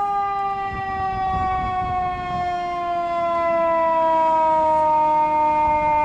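Fire department ladder truck's siren sounding one long tone that slowly falls in pitch, then holds steady near the end, with the truck's engine rumbling underneath as it drives past.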